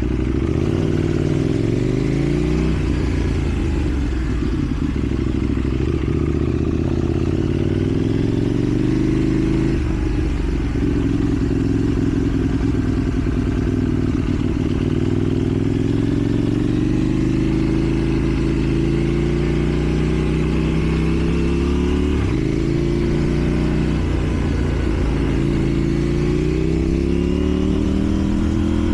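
KTM 790 Duke's parallel-twin engine running through a slip-on exhaust while riding. The revs climb and fall back several times, with clear drops about a third of the way in and again past two-thirds, each followed by a rising pitch.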